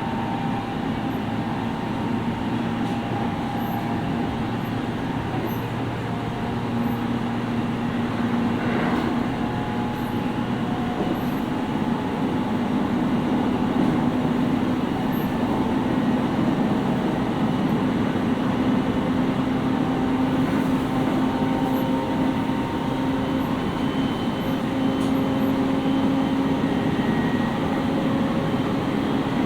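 Interior running noise of a JR East 701 series 5500-subseries electric train under way: steady rumble of wheels on rail, with a hum that slowly rises in pitch as the train gains speed. It gets a little louder about halfway through.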